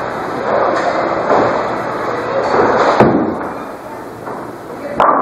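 Bowling alley din: balls rolling and pins crashing, mixed with voices, with two sharp knocks about three and five seconds in.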